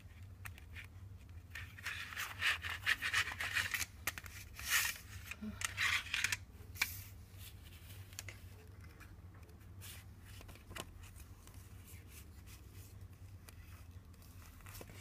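A CD single's paper and plastic packaging and inserts being handled: rustling and rubbing in bursts, loudest from about two to seven seconds in, then lighter handling.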